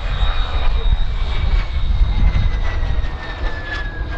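Morane-Saulnier MS.760 Paris twin-jet's Turbomeca Marboré turbojets in a flypast: a steady low rumble under a high whine that slowly falls in pitch as the jet passes.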